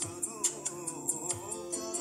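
Background music with held notes and a wavering melody line.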